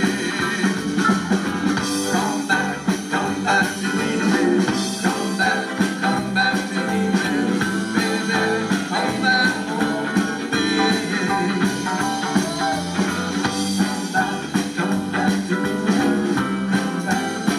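Live band playing a doo-wop song, with drums keeping a steady beat under the guitar and other instruments.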